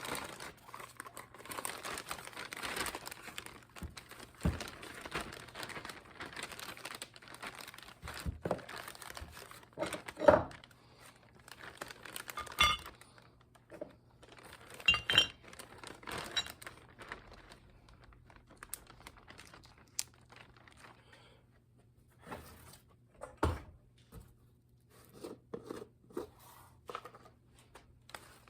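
Irregular workshop handling noises: rustling and crinkling, broken by a handful of sharp knocks and clinks. The rustling is busiest through the first half and thins out later.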